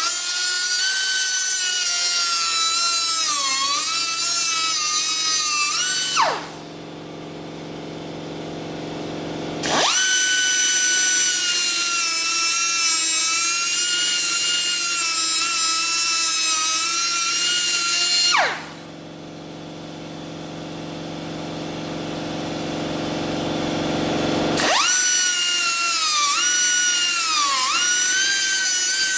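Angle grinder with a thin cut-off wheel cutting rusty sheet steel on a 1965 Ford F100 cab, in three runs, skimming through the outer layer only. Its high whine dips in pitch as the wheel bites and recovers, and falls away as the wheel spins down after each run.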